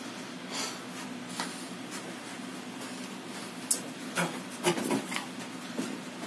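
Irregular short scuffs and swishes from shadow boxing: sneakers shuffling on carpet and quick body and arm movements, with the strokes coming more often in the second half. A steady low hum runs underneath.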